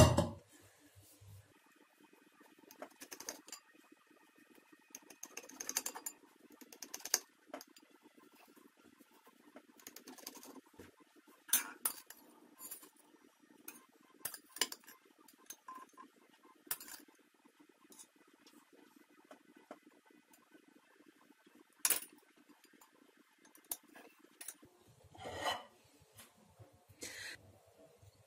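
Scattered light clinks and knocks of dishes and kitchen utensils being handled, with faint rustling between them.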